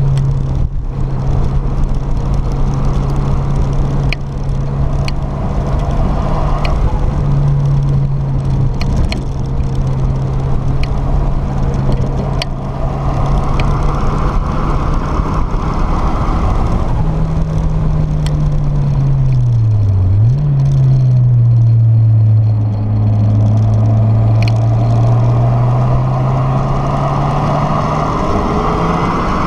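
Turbocharged Mazda MX-5's four-cylinder engine running hard at a steady pitch, heard from inside the open cockpit with wind noise over it. About twenty seconds in the engine note sags, dips sharply and settles lower, then climbs again near the end.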